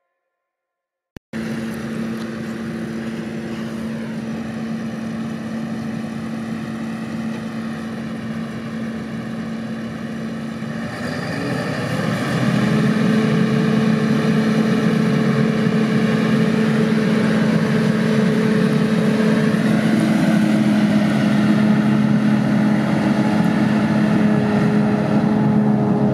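CLAAS Jaguar 840 self-propelled forage harvester running under load as it cuts and chops standing maize for silage: a steady engine and machinery hum with a held tone. It starts about a second in and grows louder about eleven seconds in as the machine comes closer.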